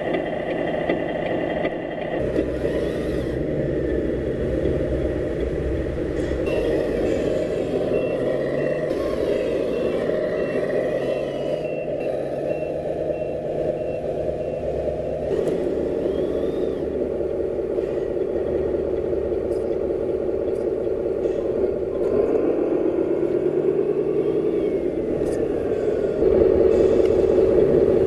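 Heavy diesel truck engine sound, as from an RC scale wrecker, running steadily with pitch shifts like revving under load. A reversing alarm beeps about once a second for several seconds in the middle, and the engine grows louder near the end.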